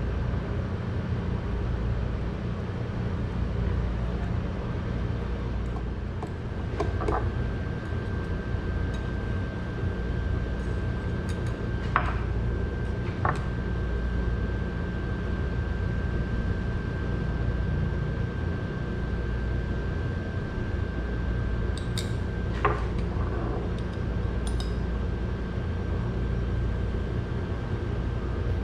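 Steady low kitchen hum with a faint high steady tone, and a handful of light clinks scattered through it as metal-tipped chopsticks tap a small ceramic dish and the slate plate.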